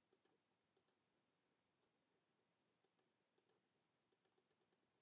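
Near silence broken by faint computer mouse clicks: a scatter of very short ticks, several in quick pairs, most of them in the second half.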